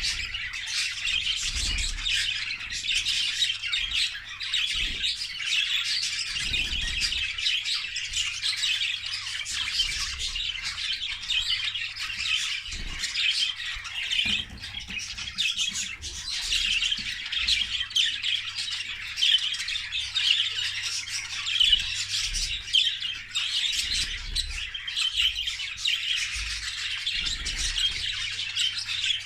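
A group of English (exhibition) budgerigars chattering and squawking without pause, many birds calling over one another, over a steady low hum.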